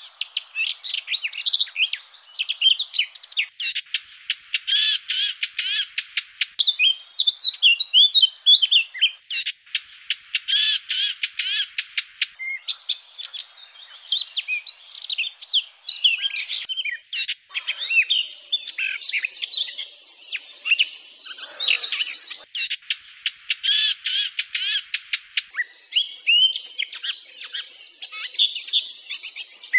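Eurasian blackcap singing: a fast, continuous warbling song of twittering notes and quick trills, phrase after phrase with hardly a pause.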